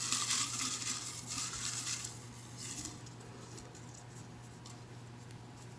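Folded paper slips rustling and scraping as a hand rummages through a plastic jar. The rustling is busiest for the first two seconds, comes again briefly about three seconds in, then dies down.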